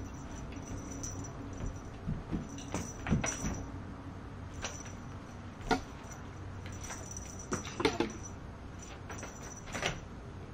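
A cat playing with a small fabric dragonfly toy on a carpet: scattered soft rustles and light clicks as it bats, grabs and rolls, a few of them sharper than the rest.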